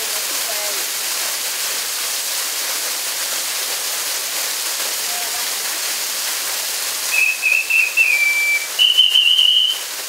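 Steady rush of a small waterfall splashing onto rocks. Near the end come two high whistles: a wavering one that settles into a short held note, then a slightly higher steady one lasting about a second.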